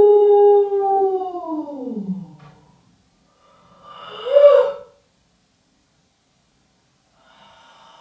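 Home-made sound-effect tones. A held pitched note slides steadily down in pitch and dies away about two seconds in. After a short silence a brief, loud tone swells up and falls back in the middle, and faint steady tones come in near the end.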